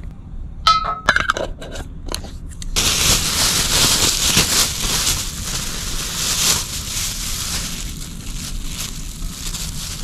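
A plastic bag crinkling and rustling in short bursts. Then, about three seconds in, a steady sizzle starts suddenly as mushrooms go into hot fat in a cast-iron skillet, easing a little toward the end.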